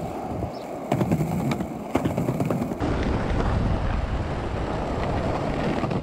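Small skateboard wheels of a narrow plastic cruiser board rolling over rough asphalt and paving: a steady gritty rumble with a few sharp clacks in the first two seconds.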